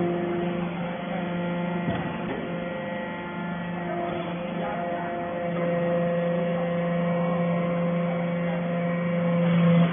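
Hydraulic metal-chip briquetting press running, its electric motor and hydraulic pump giving a steady multi-tone hum with a few faint knocks. The hum grows louder from about halfway, swells near the end and then drops off abruptly.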